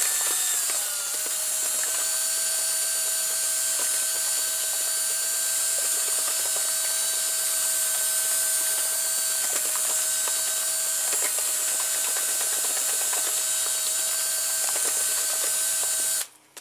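Cordless drill running steadily with a mixing attachment, stirring two-part polyurethane pouring foam in a plastic tub: a steady motor whine that dips slightly in pitch about a second in and stops abruptly just before the end.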